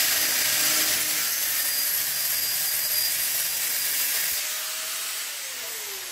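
Handheld angle grinder with an abrasive cut-off disc cutting through a thin steel square tube, a loud, even, hissing grind. Near the end the cut is through and the grinder is let go: its whine falls in pitch as the disc spins down.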